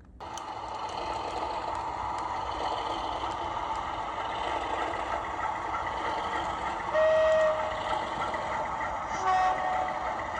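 Model railway train running on the layout with a steady running noise, and a locomotive horn sounding two short toots, the first about seven seconds in and a shorter one near the end.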